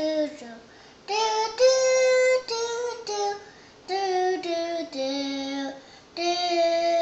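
A young child singing a string of held notes without words, imitating the sound of a cello.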